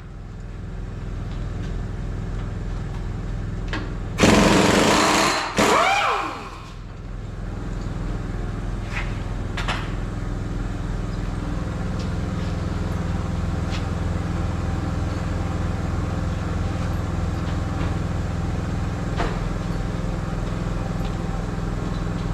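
A machine hums steadily and low in the background. About four seconds in, a power tool gives two loud bursts of about a second each, and the second winds down in pitch as it stops.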